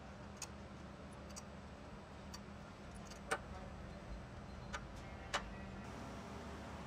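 About half a dozen light metal clicks and taps, spaced irregularly, as hand tools are handled on a steel workbench; the loudest comes a little past the middle. A steady low hum runs underneath.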